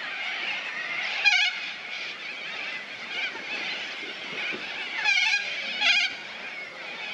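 Constant chatter of a large flock of birds, which the speaker takes for corellas, with three louder harsh screeches: one about a second in and two close together near the end.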